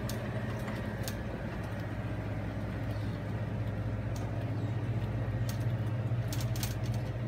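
Shopping cart being pushed across a carpeted store floor: a steady low rumble with scattered clicks and rattles.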